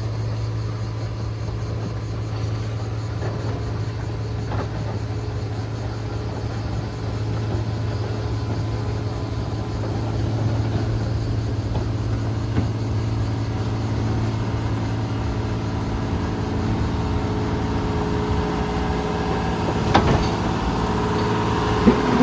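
Diesel engine of a John Deere earthmoving machine running steadily at an even speed, with a single sharp knock near the end.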